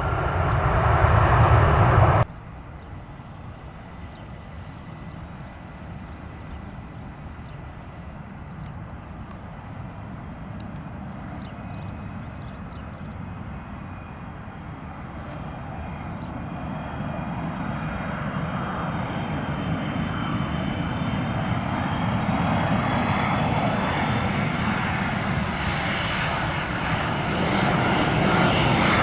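A loud jet-engine sound cuts off abruptly about two seconds in. Then an Airbus A330-200 airliner's Pratt & Whitney turbofans grow steadily louder as it comes in to land, with a high whine that slides slowly in pitch.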